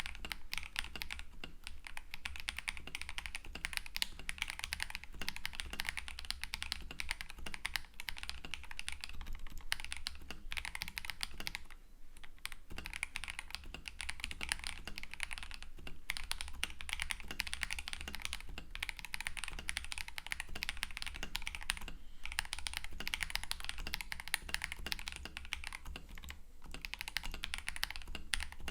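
Fast, continuous typing on a KBD67 Lite R4 mechanical keyboard fitted with prelubed KTT Strawberry switches and Clear 2048 keycaps. The stream of keystrokes breaks off briefly about 8, 12 and 22 seconds in.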